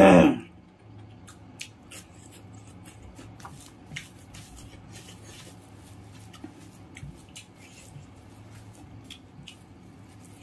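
Eating sounds up close: faint scattered clicks of chewing and of fingers mixing rice with curry on a banana leaf. A short loud sound with a falling pitch comes right at the start.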